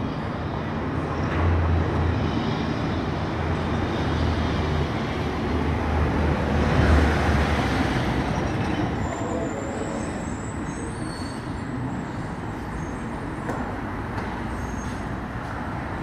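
Road traffic: vehicles passing, a steady noisy rumble that swells about two seconds in and again, loudest, around seven seconds.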